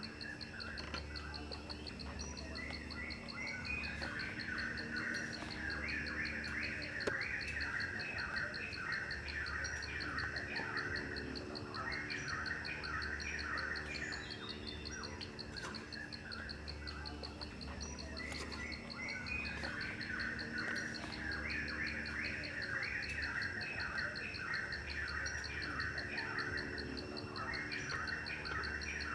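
Outdoor nature ambience: insects keep up a steady, fast high-pitched trill while birds chirp in repeated bursts every few seconds.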